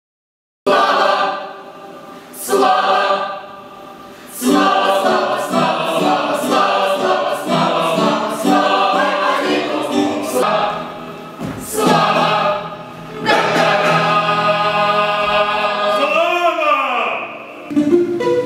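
Choir of many voices singing together in phrases, starting suddenly about a second in, with short dips between the first phrases; near the end the voices swoop up and down in pitch.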